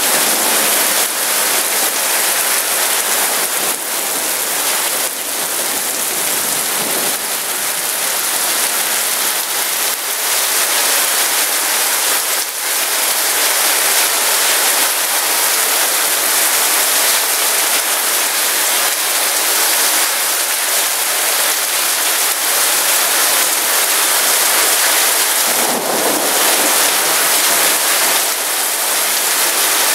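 Heavy rain pouring steadily in a thunderstorm, with a few brief sharp hits.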